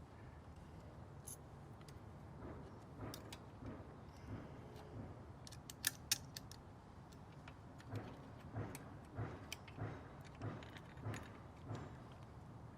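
Faint metal clinks and knocks of an exhaust mounting bracket and tools being handled, with two sharp clicks about halfway, then a run of evenly spaced soft knocks near the end.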